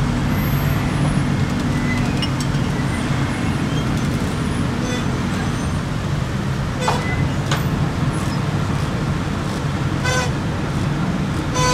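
Steady low engine drone of heavy vehicles and road traffic while the crane lifts the overturned box truck, with a short vehicle horn toot near the end.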